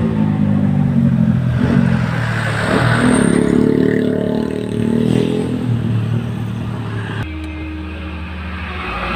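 Road traffic passing close by: a truck's engine and motorcycle engines rising and falling in pitch as they go past. About seven seconds in the sound cuts abruptly to the steadier, lower hum heard inside a moving car.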